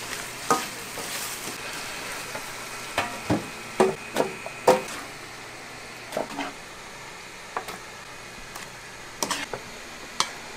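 Kitchen clatter: about a dozen sharp knocks and clinks of utensils against pots and dishes, scattered irregularly, some ringing briefly, over a low steady hiss. A frying and stirring sizzle dies away in the first second.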